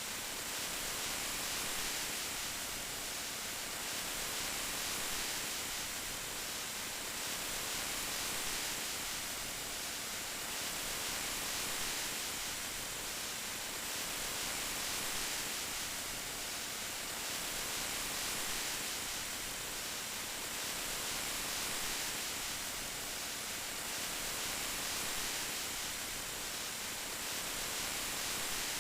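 Steady hiss of rain falling, even and unbroken, swelling gently and easing off about every two seconds.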